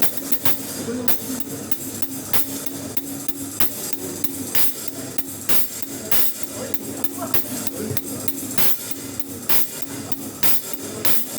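A drum on a kit struck with a stick about once a second during a sound check, with lighter taps between the main hits.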